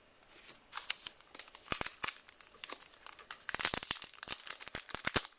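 A plastic baseball card pack wrapper crinkling and tearing as a pack is opened, a run of sharp crackles that gets denser and louder in the second half.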